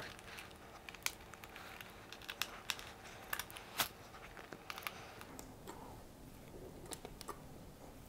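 Faint, irregular small clicks and ticks from hands and a small screwdriver working on parts inside an opened laptop chassis, the loudest click a little before four seconds in.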